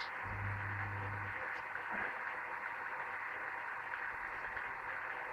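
Bendix 7147A washing machine running mid-cycle: a steady hiss, with a low motor hum coming in about a quarter of a second in and lasting about a second.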